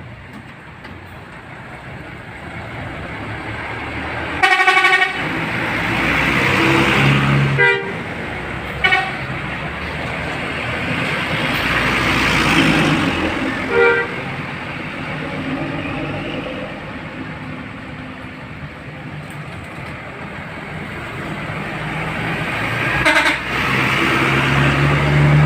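Bus's musical multi-tone telolet horn sounding in five short blasts, the first and loudest about half a second long, the rest brief. Underneath, the bus's diesel engine runs with a steady noise that swells and fades, growing louder again near the end.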